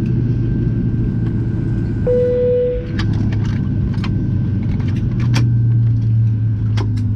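Airliner cabin of a Boeing 737-700: a steady low hum with a faint constant tone above it, a single short chime tone about two seconds in, and scattered clicks and knocks.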